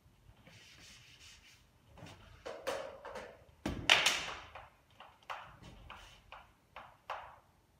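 Chalk tapping and scraping on a blackboard as an equation is written, in a string of short strokes, with one loud, sharp knock about four seconds in. Before that, soft rubbing from a felt board eraser.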